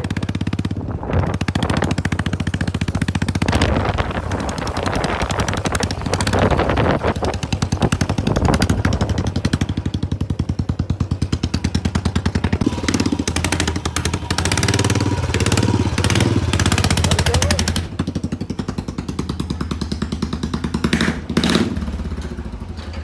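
Royal Enfield Bullet's single-cylinder four-stroke engine running with its silencer removed, the open exhaust giving a loud, rapid pulsing beat whose level rises and falls with the throttle. It fades away near the end.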